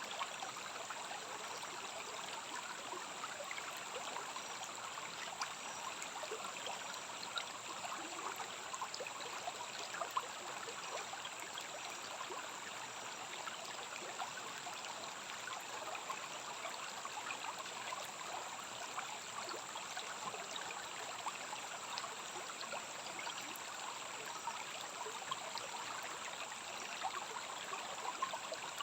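A rainforest stream running steadily, a continuous rushing and trickling of water with small splashes, under a constant high-pitched whine.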